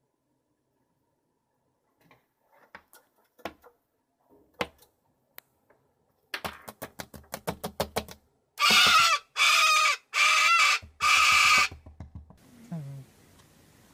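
A corella, a small white cockatoo, tapping at window glass, first in scattered taps and then in a quick run, followed by four loud, harsh screeches in a row.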